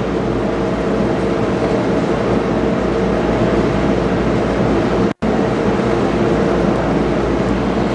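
Steady hum and hiss of room noise, with the sound cutting out completely for a split second about five seconds in.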